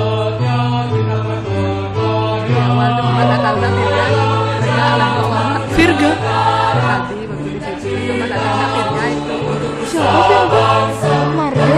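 A mixed high-school choir singing in parts, with a low line of notes repeating a short pattern beneath the upper voices.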